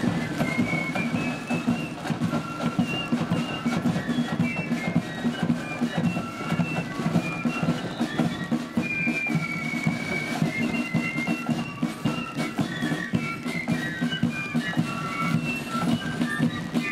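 Marching flute band playing a march: flutes carrying a high melody over fast snare drum rudiments that run beneath it.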